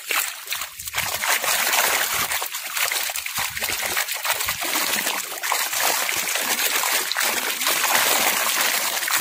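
A school of fish leaping out of the water and thrashing at the surface, a dense, continuous spattering of many small splashes.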